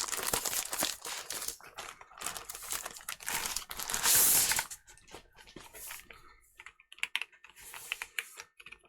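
Packaging crinkling as the new keyboard is unwrapped, loudest about four seconds in. This gives way to scattered clicks of keys being pressed on a Keychron Q6 HE, a keyboard with Hall effect magnetic switches.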